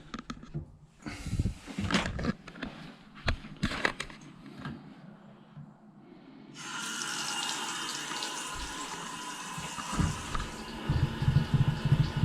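A few knocks and clicks, then about seven seconds in a tap is opened and water runs steadily into a sink. This is a hot tap run to call the boiler to fire while it is being checked for not lighting.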